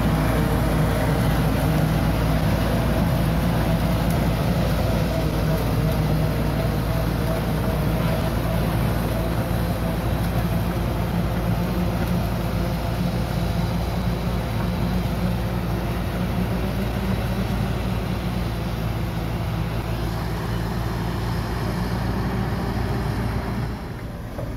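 Hitachi Zaxis 130 amphibious excavator's diesel engine running steadily with a low hum as the machine crawls on its pontoon tracks through swamp water. It becomes quieter near the end.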